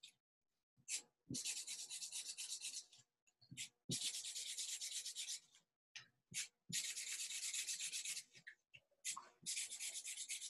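Purple Sharpie felt-tip marker scribbling fast on paper, coloring in shapes with quick back-and-forth strokes. It comes in four spells of a second or two each with short pauses between.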